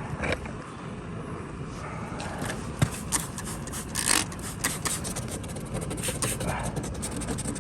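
Irregular scraping strokes of a putty spreader working fiberglass putty over a cracked plastic car bumper, with a few sharper scrapes about three and four seconds in.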